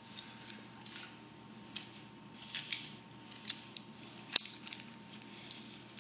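Small plastic toy pieces and packaging handled close to the microphone: scattered crinkles and light clicks, with one sharp click about four seconds in.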